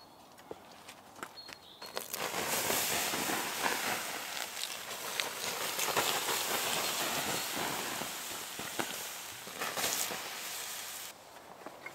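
Water poured onto the hot ash of a burnt-out campfire, splashing and hissing steadily; it starts about two seconds in and stops abruptly near the end.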